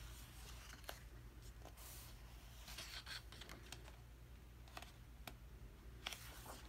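Faint rustle of a glossy photobook page being turned by hand, with a few light clicks and taps of fingers on the paper, over a low steady hum.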